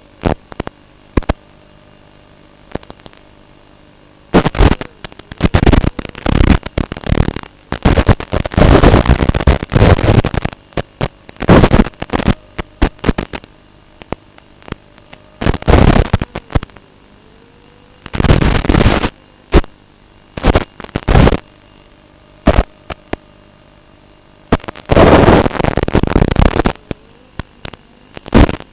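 Irregular loud bursts of radio static hiss over a faint steady hum, from an analog FPV video receiver's audio channel as the 5.8 GHz video link breaks up. The dropouts come from the goggle antenna's right-hand polarisation not matching the quad's left-hand antenna.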